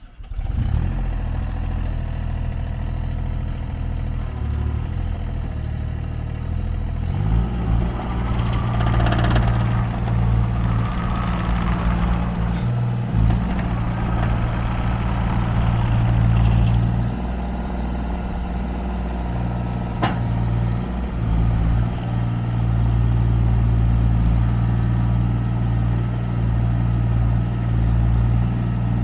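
JCB 8030 ZTS mini excavator's diesel engine running steadily, picking up revs about seven seconds in. Clatter and a higher hiss ride over it for the next several seconds, and there is a single sharp knock about twenty seconds in.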